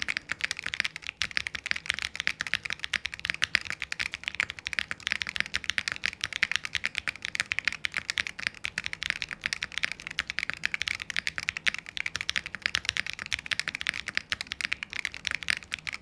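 Steady, fast typing on a Qwertykeys QK80 tenkeyless mechanical keyboard with stock Akko CS Wine White tactile switches, PBT cherry-profile keycaps and an FR4 plate, all the included foam fitted. A dense, unbroken run of keystrokes with a marbly, foamy sound.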